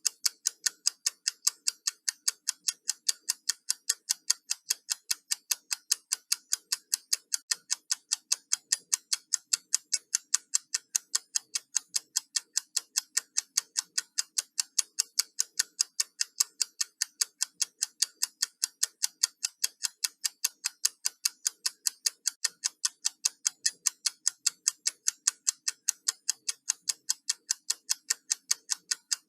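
Countdown timer ticking: quick, even, sharp ticks, a few per second, at a steady level.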